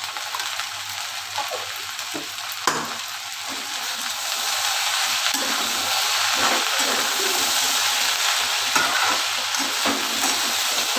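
Chopped okra frying in oil with its powdered spices, a steady sizzle with a spatula scraping and stirring through the pan; the sizzle grows louder about four seconds in.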